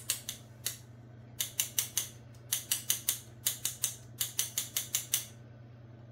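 Fine-mesh metal kitchen sieve shaken over a glass bowl to sift flour, making rapid rhythmic rattles at about five a second in several short runs that stop about five seconds in.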